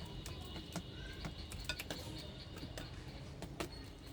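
Small birds giving a few short chirps amid a scatter of sharp clicks and taps, over a steady low rumble.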